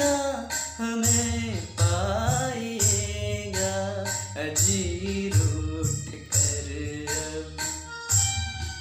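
A man singing a Hindi film song in drawn-out, wavering notes over a karaoke backing track with a steady drum beat; his voice stops near the end, leaving the instrumental backing.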